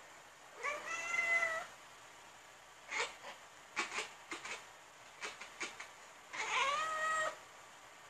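Tabby cat chirping at prey it is stalking. It gives two drawn-out calls that rise in pitch and then hold, one near the start and one near the end, with a run of short clipped chirps in between.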